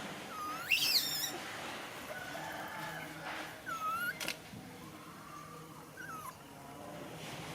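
Pet monkey giving short high-pitched squeaky calls: one sharply rising squeal about a second in, then single shorter squeaks around the middle and near six seconds.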